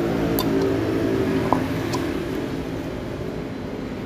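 Steady hum of an engine running in the background, with a few light metal clicks as a long steel rod works against a removed Yamaha Scorpio cylinder head at its camshaft end.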